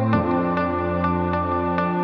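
Background music: a calm ambient-style track of sustained tones over a light, steady beat, changing chord just after the start.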